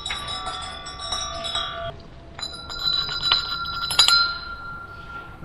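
Rusted metal blades of a large turbine rotor raked with a flashlight: a quick run of ticks that sets the blades ringing in clear, bell-like tones. There are two sweeps, the second ending in a sharp strike about four seconds in.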